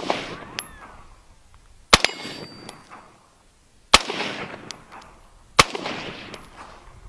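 Colt AR-15 firing 5.56 rounds at a stainless steel plate: three sharp shots about two seconds apart, each followed by a rolling echo, with a metallic clang of bullets striking the steel.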